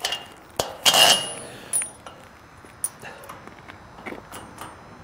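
Small steel hardware (washers and flange nuts on the gate-lift bolt) clinking and rattling as it is handled, with a few sharp metallic clicks that ring briefly, the loudest about a second in, then lighter ticks.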